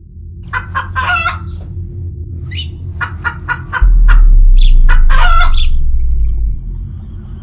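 A run of short bird calls with two longer drawn-out calls, over a steady low rumble. A deep bass boom comes in about four seconds in, the loudest sound, and dies away by about six and a half seconds.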